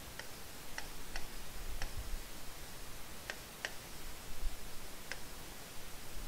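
Light, irregular ticks of a stylus tip tapping a tablet screen while words are handwritten, a handful of short clicks spread unevenly over a faint background.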